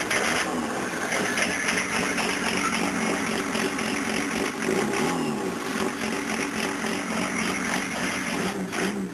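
Freshly rebuilt Peugeot XUD9 four-cylinder turbo diesel engine running at idle on one of its first runs, with a steady diesel clatter.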